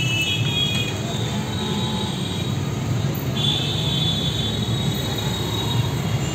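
Steady roadside street noise: a low rumble of traffic with indistinct background voices and a faint high whine that comes and goes.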